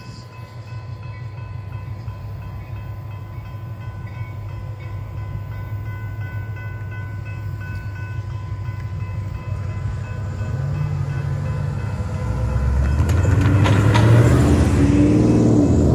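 General Signal Type 3 electronic crossing bell ringing steadily while the crossing signals flash, over a low rumble. Near the end a pickup truck's engine grows loud as it drives across the tracks.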